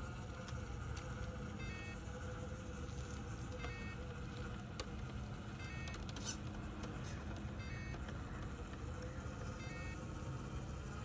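Scale RC crawler's 550-size 35-turn brushed electric motor and gearbox running steadily at low crawling speed in low gear, a faint drivetrain hum and whine. A short beeping pattern repeats about every two seconds, and a brief scrape about six seconds in as the rear wheels climb the curb edge.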